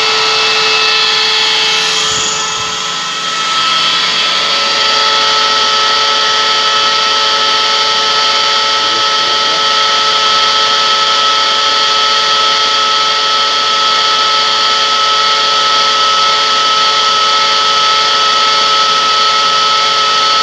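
Screw air compressor running steadily, a loud mechanical noise with several steady whining tones that dips briefly about two seconds in.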